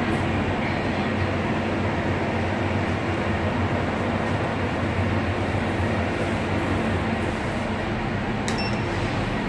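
Schindler 5500 machine-room-less traction elevator car travelling between floors: a steady rumble with a low hum inside the car. A single sharp click about a second before the end.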